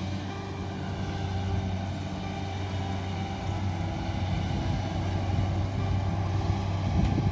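Diesel engines running steadily: a farm tractor idling close by and a Kubota combine harvester working in the paddy field. The engine hum grows slightly louder toward the end.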